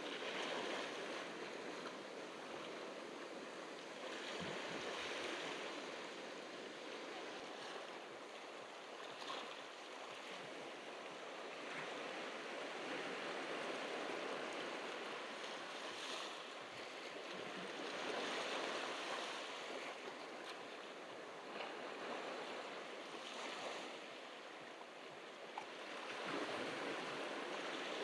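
Ocean surf washing onto a beach: a steady rushing that swells and eases every few seconds as the waves come in.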